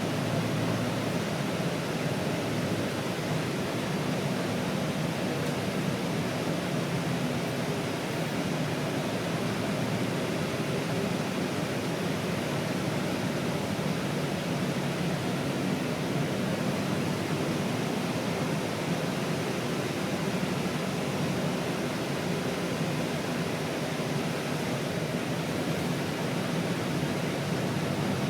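Steady cabin noise inside an air-conditioned bus: an even, unchanging rush of air-conditioning and vehicle hum.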